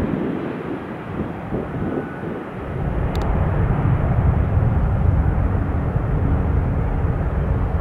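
Jet airliner engines rumbling, growing louder about two and a half seconds in and then holding steady.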